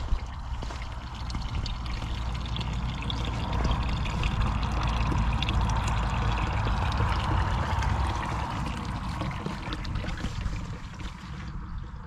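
Thin stream of water from the spout of a concrete drinking fountain pouring into its water-filled basin, a steady splashing trickle. It grows louder toward the middle and fades near the end, over a low rumble.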